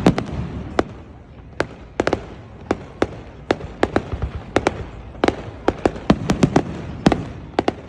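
Fireworks display: a rapid, irregular series of sharp bangs, several clustered close together, over a continuous low rumble.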